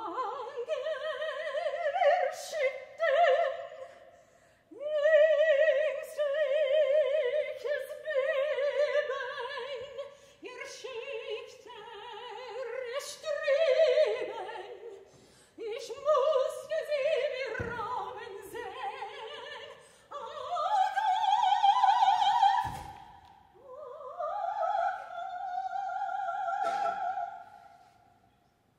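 A high operatic female voice singing long held notes with a wide vibrato, in several phrases broken by short pauses and with no accompaniment.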